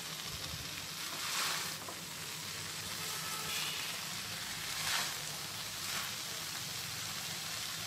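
Washed, damp moringa (drumstick) leaves sizzling steadily in a hot pan, with a few brief louder swells, about a second and a half in and again around five and six seconds.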